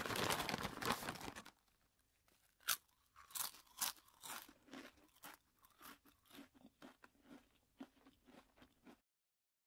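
Wood campfire crackling, dense at first and then thinning to scattered sharp pops and snaps.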